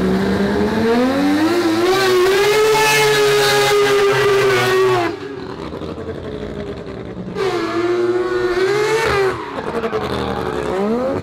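Mazda RX-7's four-rotor rotary engine revving hard under acceleration: the pitch climbs over the first couple of seconds, holds, then drops off abruptly about five seconds in. After a quieter spell it pulls up again briefly, falls off, and starts climbing once more near the end.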